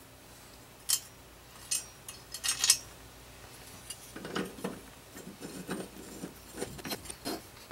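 Metal clinks and rattles as lawn mower blades are handled and fitted onto the blade holder under the deck by hand: a few sharp clicks early, then a run of softer, duller knocks and rubs from about four seconds in.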